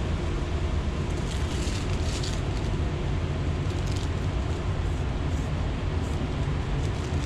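Steady low machine rumble with a hiss above it; the hiss brightens briefly a few times.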